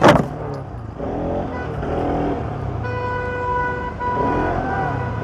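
Road traffic heard from a moving motorcycle: a sharp knock right at the start, the loudest moment, then a vehicle horn sounding one steady note for about a second in the middle.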